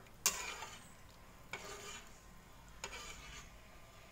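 A grey plastic slotted spatula stirs coconut-milk curry in a white ceramic-coated wok, scraping across the pan in three strokes about a second and a half apart. A sharp click of the spatula against the pan comes just after the start. The stirring is kept up so the coconut milk does not split.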